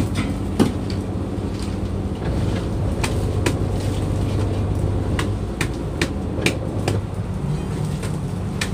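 Fishing boat's engine and drum net hauler running with a steady hum while a lobster net is hauled aboard, with irregular sharp clicks and knocks from the net gear.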